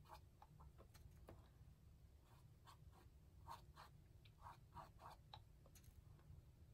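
Faint, scratchy strokes of a small paintbrush dragging paint across a canvas: a run of short, irregular swishes.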